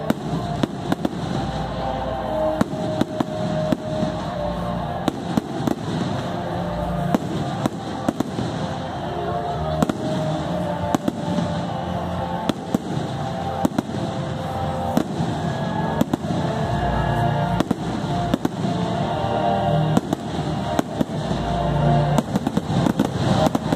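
Aerial fireworks shells bursting in an irregular string of sharp bangs and crackles, over music playing at the same time.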